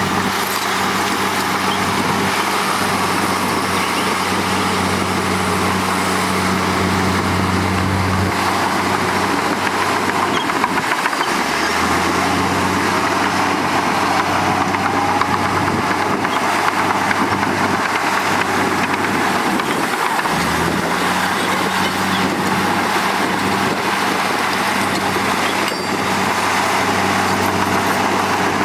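Heavy diesel engines of earthmoving machinery running steadily under a continuous mechanical din, the engine note dropping and shifting a few times as the load changes.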